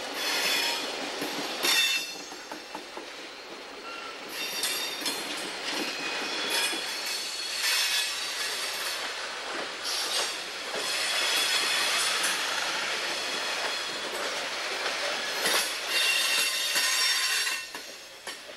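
Coal hopper cars rolling past on jointed track, their steel wheels squealing on the curve with a high-pitched squeal that comes and goes over the rumble and clatter of the trucks. The sound fades somewhat near the end.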